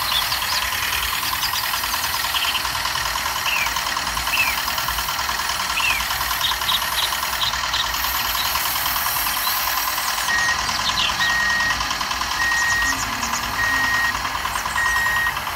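Miniature walking-tractor model running with a steady, rapid engine-like chugging and knocking. From about ten seconds in, a series of evenly spaced short beeps sounds, about one a second, like a reversing alarm.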